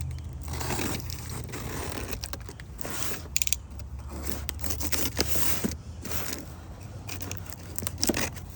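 A new ratcheting wrench being handled in its plastic packaging: irregular rustling, crinkling and scraping, with a quick run of clicks about three seconds in, over a steady low hum.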